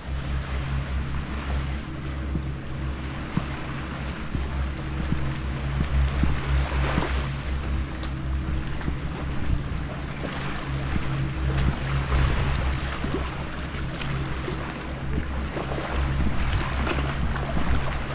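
Sea waves washing against a rocky shingle shore, with wind on the microphone, over a steady low drone.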